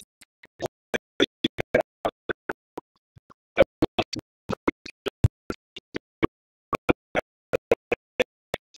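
Live-stream audio breaking up over a slow internet connection: short clipped fragments of sound a few times a second, cut apart by dropouts.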